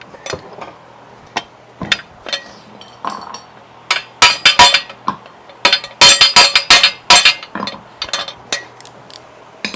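Steel hand tools and parts clinking and clattering against each other, scattered clicks at first, then two dense flurries of loud, ringing metallic clinks about four and six seconds in.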